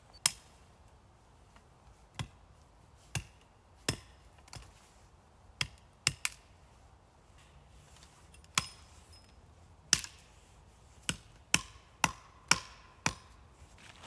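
A hand tool striking in hard, separate blows, like hammering or chopping: about fifteen sharp knocks at an uneven pace, several of them followed by a short ring.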